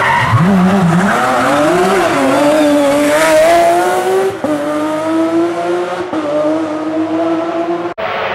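Porsche 911 GT3 rally car's flat-six accelerating hard out of a hairpin, the engine note climbing in pitch through the gears with two upshifts. The sound cuts off suddenly near the end.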